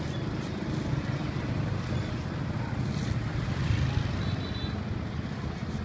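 Steady low rumble of street traffic and engines, swelling a little about four seconds in.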